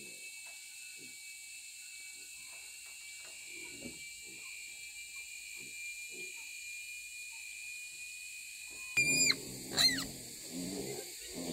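Pigs grunting softly at first, then two short, loud, high squeals about nine seconds in, followed by louder grunting. A steady high-pitched drone runs underneath.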